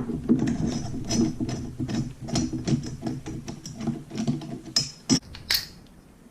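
Close-up handling noise from stripping a metal M4-style gel blaster: dense, irregular rattling and clicking of metal parts and tools as the buffer tube screw is worked loose. A few sharp knocks come about five seconds in.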